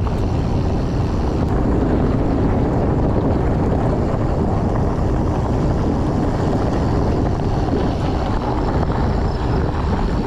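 Steady wind noise on the microphone of a camera riding on a moving fat bike, mixed with its 4.8-inch tires rolling over a dirt and gravel road.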